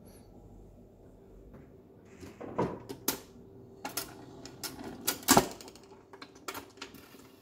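Silvertone record changer being switched on and cycling: knob clicks, then a run of mechanical clicks and clunks from the changer, the loudest a little after five seconds in.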